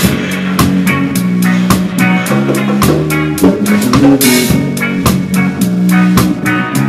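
Live reggae band playing, heard close to the drum kit: steady snare and kick drum strikes over a bass guitar line, with a cymbal crash about four seconds in.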